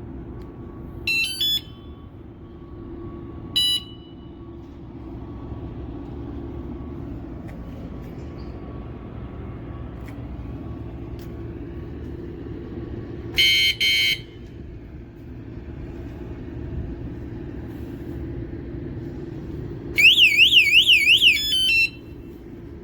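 Electronic bike alarm (ONVIAN rechargeable unit) sounding off: short high chirps about a second in and again a few seconds later, a louder brief tone about thirteen seconds in, and near the end a loud warbling siren lasting about two seconds. A steady low hum runs underneath.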